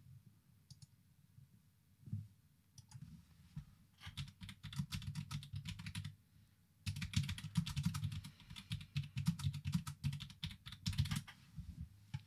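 Rapid light clicking of typing on a computer keyboard, in a short run about four seconds in and a longer run from about seven to eleven seconds.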